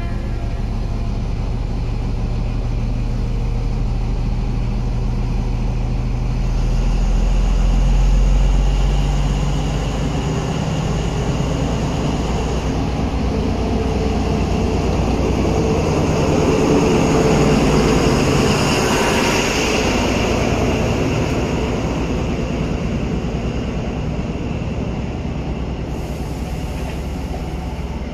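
Paxman VP185 diesel engine of a Class 43 HST power car running steadily under power as the train pulls away, swelling as the power car comes alongside, then the coaches rolling slowly past.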